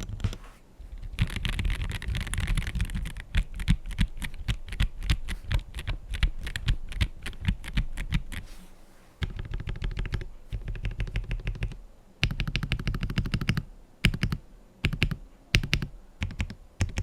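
Typing on an MW75 gasket-mounted mechanical keyboard with Gateron Yellow Pro switches and a polycarbonate plate: fast runs of keystrokes with brief pauses, then a few short separate groups of key presses near the end.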